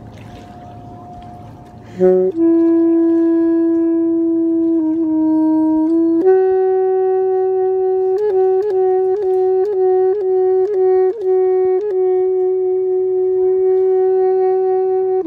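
Alto saxophone playing slow, long held notes: soft for the first two seconds, then a loud low note, a step up about six seconds in to a higher held note broken by a run of quick short ornaments, and that note held again.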